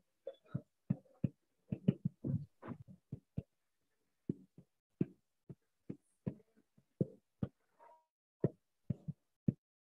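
Stylus tapping on a pen tablet while handwriting: a string of short, dull, irregular taps, a few each second, with a pause of about a second near the middle.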